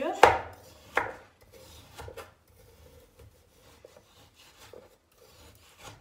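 Knife cutting raw chicken breast on a cutting board: two sharp knocks in the first second, two softer ones about two seconds in, then only faint light taps.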